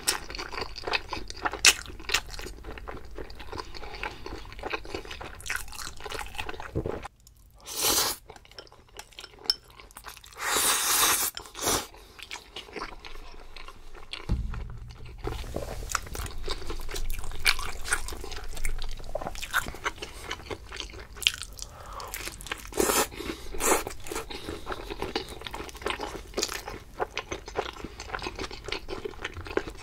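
Close-miked eating sounds: repeated crunchy bites and wet chewing of food, irregular and continuous, with a couple of louder crunching bursts partway through.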